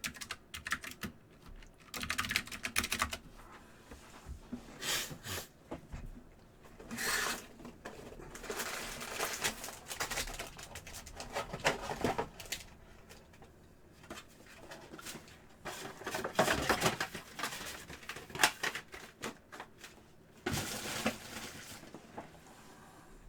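Trading-card packaging being handled and opened: crinkling and tearing of wrap and foil pack wrappers, with small clicks, in several separate bursts.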